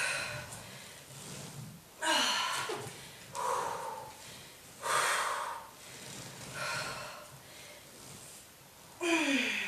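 A woman's heavy breathing from exertion: forceful breathy exhales about every one and a half seconds, a couple of them with a short falling sound from her voice.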